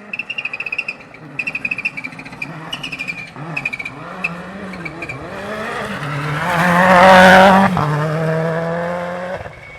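Rally car engine revving hard through gear changes as it approaches, passing loudest about seven seconds in and then fading away. In the first few seconds there is a run of short, high-pitched chirping bursts.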